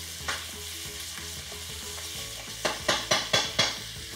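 Pieces of ewe meat and onions sizzling as they sauté in a frying pan. A spatula scrapes the pan once just after the start, then in a quick run of about five strokes a little past halfway.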